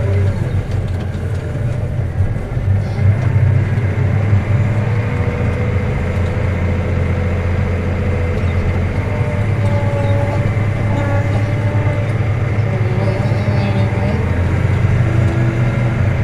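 Claas Axion tractor's diesel engine running steadily under load while pulling a disc harrow across a field, a low, even drone heard from inside the cab.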